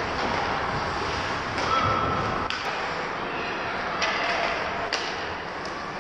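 Ice hockey rink sounds: a steady hiss of skates on the ice with a few sharp clacks of sticks and puck, about two and a half, four and five seconds in.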